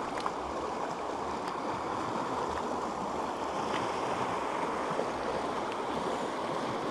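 Shallow stream rushing over a rocky riffle: a steady wash of running water.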